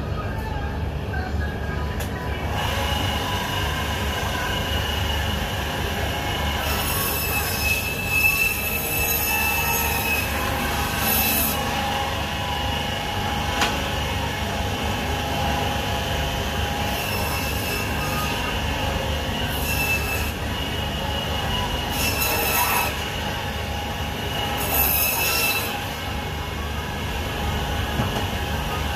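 Electric meat mincer running: a steady motor hum with a squealing whine, broken by several short spells of louder high screeching as it is fed.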